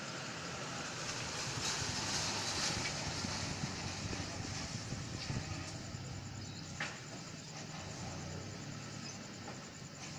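Steady background rumble and hiss, with a louder stretch of hiss a couple of seconds in and a single sharp click about seven seconds in.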